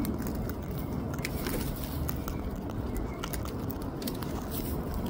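Sulphur-crested cockatoo husking seed in its beak: scattered small crunching clicks over steady background noise.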